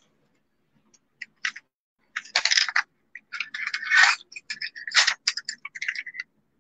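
Wooden graphite pencils clicking and rattling against a LYRA Art Design metal pencil tin and the wooden desk as they are picked out and set down: a run of quick clicks and short scrapes, busiest from about two seconds in.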